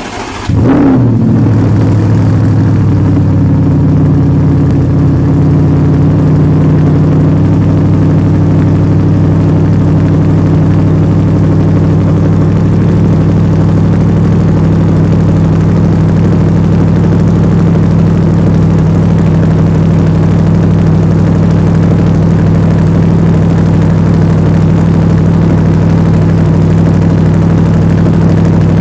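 Audi R8 4.2 V8 with a Milltek cat-back exhaust firing up from cold: it catches with a short flare in revs about a second in, then settles into a loud, steady cold-start idle.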